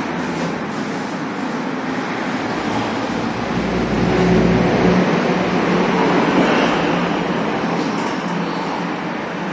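Road traffic noise, with a low rumble swelling about four seconds in as a vehicle passes.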